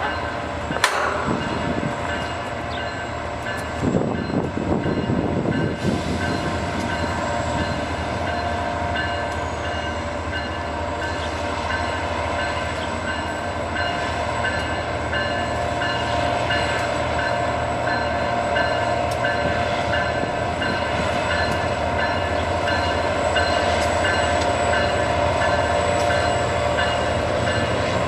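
Two EMD F40PH diesel-electric locomotives pulling a passenger train slowly toward the listener: a steady diesel rumble with a steady whine that gets gradually louder as they approach.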